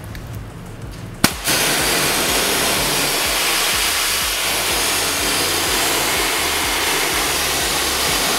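A water spray gun cuts in with a click and then sprays steadily into a car's felt-lined wheel well, a loud, even hiss with water splashing down onto the tile floor.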